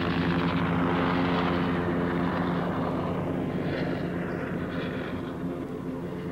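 Lockheed AH-56 Cheyenne compound helicopter flying low past. Its turboshaft engine, rotor and pusher propeller make a steady hum of several tones under a rushing noise. The rush is loudest in the first second or two, then slowly fades as the aircraft moves away.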